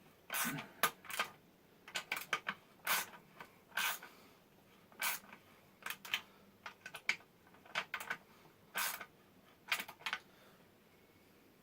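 Case-half bolts being run into a New Process 231 transfer case: short, irregular clicks and rasping strokes of a hand tool on the bolts, about one or two a second.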